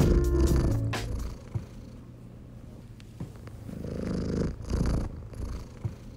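The last notes of background music fade out in the first second. Then a domestic cat purring close to the microphone swells in two waves about four and five seconds in.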